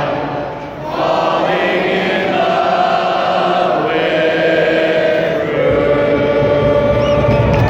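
Stadium crowd of soccer supporters singing together in long held notes, with one man singing close to the microphone. The singing is softer for about the first second, then swells and stays full.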